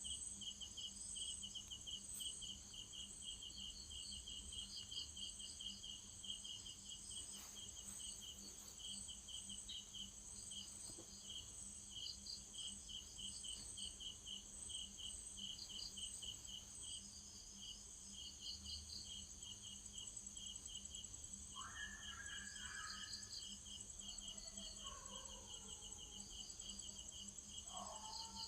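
Insects chirping in rapid, steady pulses at several high pitches over a faint low hum, with a few other faint sounds in the last third.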